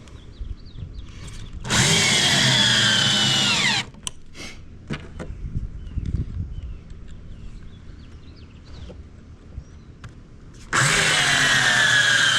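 Power drill driving screws into wood: two runs of about two seconds each, the motor pitch dropping at the end of each as the screw seats. Small knocks of handling in between.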